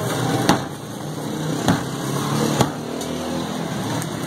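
Steady din of a busy street-food stall with traffic, broken by three sharp knocks about a second apart.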